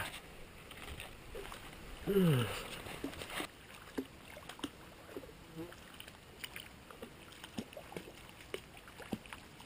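Faint creek water with scattered small knocks and light splashes. About two seconds in, a short voice sound falls in pitch.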